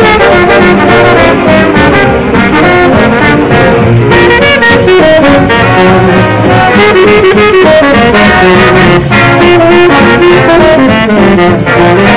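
Swing jazz music with brass horns playing over a steady beat.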